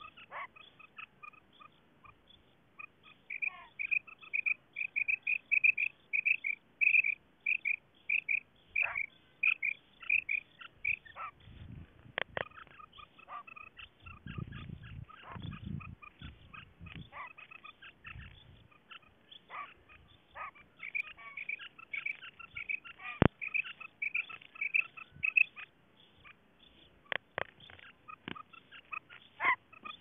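Female common quail calling: runs of short, high notes at about three a second, one from about three to eleven seconds in and another from about twenty to twenty-five seconds in. A few sharp clicks and a brief low rumble sound between the runs.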